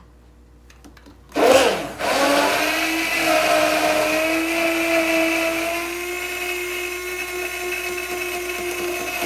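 Electric hand blender switched on about a second and a half in, whining up to speed, then running steadily as it blends eggs with lemon juice and vinegar in a tall plastic beaker. It winds down at the very end.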